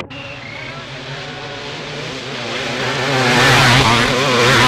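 Two-stroke motocross motorcycle engines revving, the pitch rising and falling with the throttle, growing much louder from about two and a half seconds in as a bike comes close.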